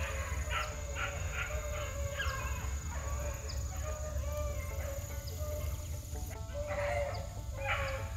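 Rabbit-hunting hounds baying and yelping in short, irregular bursts, the sound of the pack trailing a rabbit.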